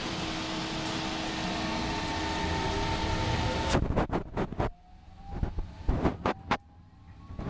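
Alstom Citadis Spirit light-rail train of the O-Train Confederation Line running, heard from inside: steady rolling noise with a motor whine. A little past halfway the rolling hiss drops away, and a run of loud clacks and knocks follows while a whine slowly rises in pitch.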